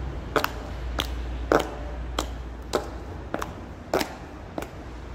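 Stiletto heels, worn down to their metal nails, striking hard paving in a steady walk: a loud, sharp clip-clop, about one click every 0.6 seconds.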